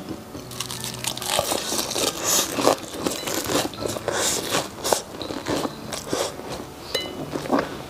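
A person chewing a mouthful of flaky-crusted caramel egg tart close to a clip-on mic, with irregular crisp crunches as the pastry layers break.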